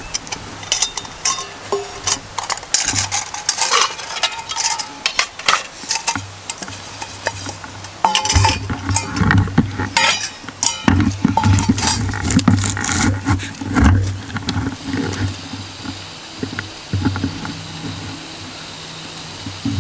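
Stainless steel camp cookware clinking and scraping as a pot and utensils are handled and set on a small canister camp stove, with many sharp clinks through the first two-thirds. A low rumble comes and goes from about eight seconds in, and a steady hiss sets in near the end.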